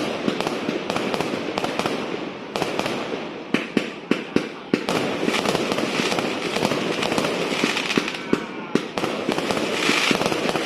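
Fireworks going off in a dense, continuous stream of crackling and popping, with sharp louder bangs scattered through and a cluster of them around the middle.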